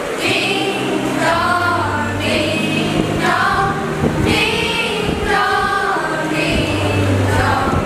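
A choir of schoolgirls singing together.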